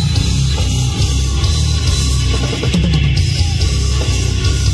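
Heavy metal band playing live at a steady loud level: distorted electric guitar over a drum kit.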